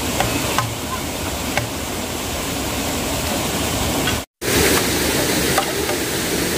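Running stream water, a steady rushing noise with a few faint clicks. It cuts out abruptly for a moment about four seconds in and returns a little louder.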